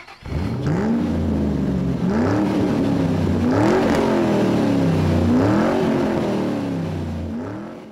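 A motor-vehicle engine revving up and down several times, its pitch rising and falling with each rev, fading near the end.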